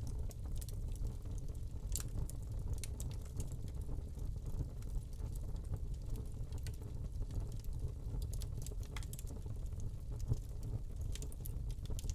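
Wood log fire burning in a fireplace: irregular small crackles and pops over a steady low rumble.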